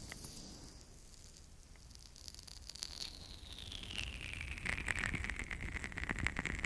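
Oiled fingers massaging a microphone's ears, giving wet, squishy crackling and pattering close up. It eases about a second in, then builds to dense crackles from about four seconds on.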